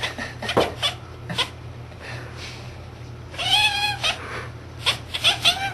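Domestic cat chattering at a bird it sees through a window: a run of quick sharp clicks, then one drawn-out call about three and a half seconds in, then more rapid clicks and a short call near the end.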